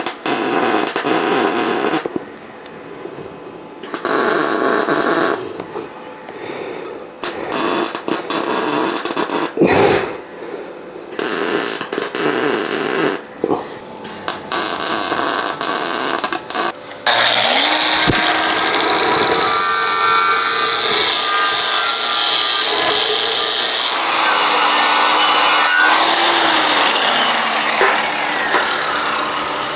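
Tack welding on steel braces: a series of crackling welding bursts of a few seconds each, with short pauses between. About 17 s in, an electric motor spins up, rising in pitch, runs steadily, and drops a little in pitch near 26 s.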